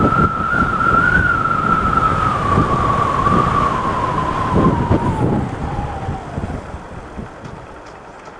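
A siren sounds one steady high tone that slowly drops in pitch and fades out over the last few seconds. Under it is the uneven low rumble of traffic engines.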